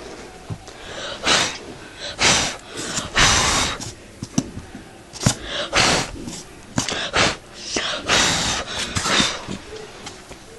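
Irregular rustling and handling noises: packaging and parts being pulled out and moved about by hand, in about a dozen short, uneven bursts.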